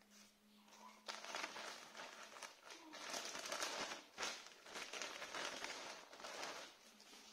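Plastic packaging and a paper insert crinkling and rustling as a pair of shorts is unwrapped by hand. It starts about a second in and goes on in uneven handling bursts with small clicks.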